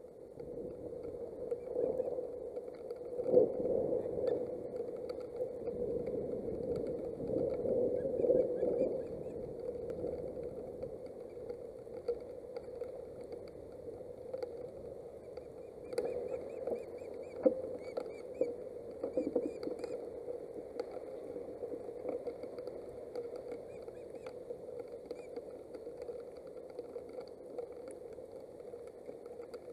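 Rain and wind on an outdoor nest-camera microphone: a steady hum under a hiss, with scattered taps and a few louder gusts in the first ten seconds.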